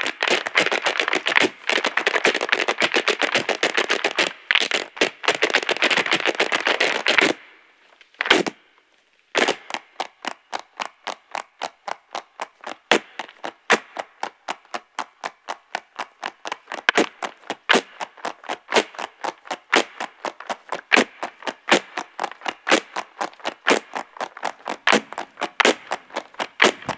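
Irish hard-shoe step dancing: a rapid, dense clatter of shoe taps on the stage that stops dead about seven seconds in. After one lone strike, the taps come back as an even rhythm of single sharp beats.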